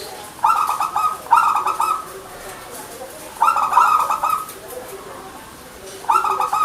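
Zebra doves (perkutut) cooing: four loud, rapid, stuttering coo phrases of under a second each, about a second and then two to three seconds apart, with fainter, lower coos from other doves in between.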